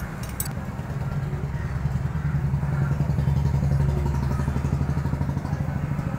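A motorcycle engine running with a low, pulsing note that grows louder through the middle and eases off near the end.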